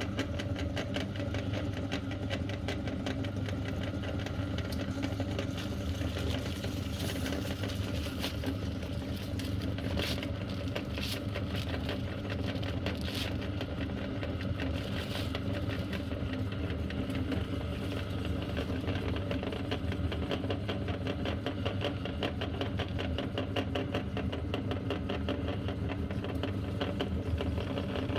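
Electric meat grinder motor running steadily with a fast, even ticking as it grinds strawberry ice cream. A few brief, sharper noises come through about a third of the way in.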